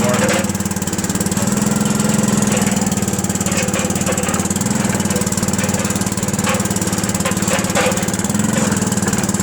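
Small gasoline engine of a late-1970s Roscoe one-ton asphalt roller running steadily, with an even, fast firing rhythm.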